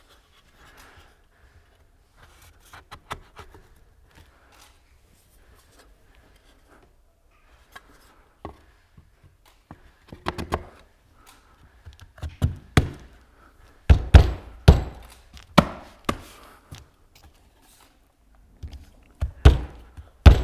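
Glued cedar boards of a beehive eke being fitted together at their joints: scattered light wooden clicks at first, then a series of sharp wooden knocks and thunks from about halfway in, the loudest in a cluster a little after two-thirds of the way through and again near the end.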